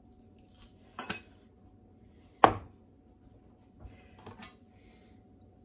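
Kitchen things being handled and set down: a light clack about a second in, a loud sharp clink about two and a half seconds in, and a few softer knocks near the end.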